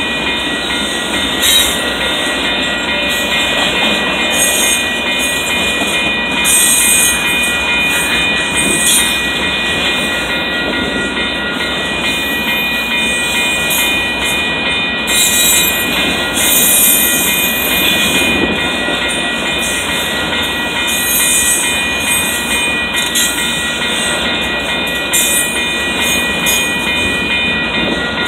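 Double-stack intermodal well cars rolling steadily past, a continuous rumble and clatter of steel wheels on rail, with a steady high whine over it.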